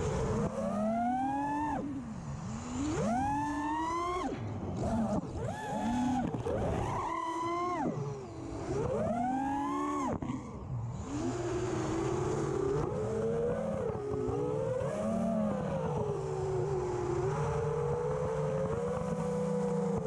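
FPV mini quadcopter's motors and propellers whining, the pitch swooping sharply up and down with each throttle punch for about the first ten seconds, then holding steadier with small wobbles.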